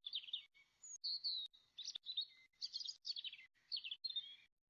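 Songbirds chirping and singing, a rapid run of short high notes and trills, with a few faint clicks near the middle.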